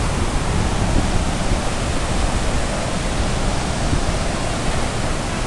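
Niagara River rapids: a steady rush of fast white water.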